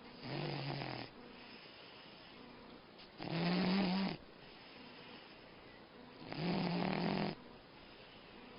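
Dog snoring: three snores about three seconds apart, each lasting about a second.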